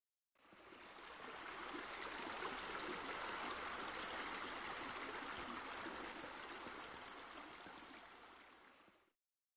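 Steady rush of running water, like a stream or a spa spilling into a pool. It fades in over about a second and fades out near the end.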